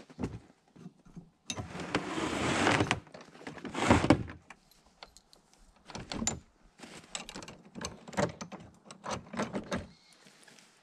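A utility sled's steel tow bar being fitted onto a snowmobile's rear hitch. There is a noisy rush lasting over a second, then a loud knock, then a string of short metal clicks and clanks.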